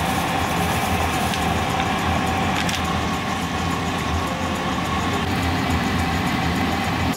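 Soup boiling hard in a pot on the stove, a steady bubbling rumble, with a wooden spatula stirring through it.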